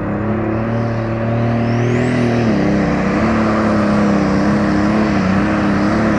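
Pulling tractor's diesel engine running hard under full load during a pull, throwing black smoke. A high whine climbs in pitch over the first few seconds, and the engine note drops about two and a half seconds in, then wavers up and down.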